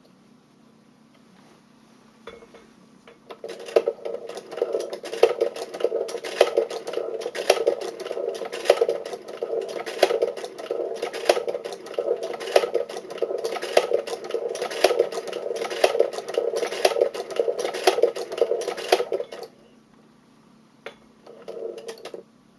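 Restored Singer 29K cast-iron sewing machine running, a steady mechanical clatter of regular clicking strokes that starts a few seconds in and stops short, followed by one brief burst near the end.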